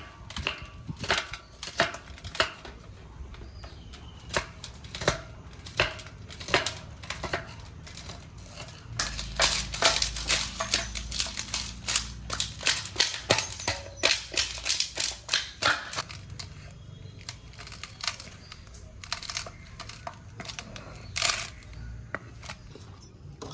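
Knife chopping on a cutting board: irregular sharp knocks, a few a second, thickest and loudest in the middle stretch.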